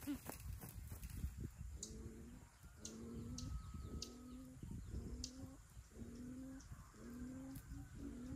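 Greater coucal calling: a run of deep hoots, one roughly every half second to second, that quicken and shorten near the end.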